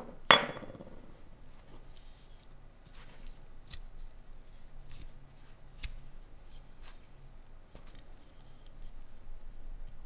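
A sharp metallic clink about a third of a second in that rings briefly, then scattered light clicks and taps from a rusty Zippo lighter's case and insert being handled.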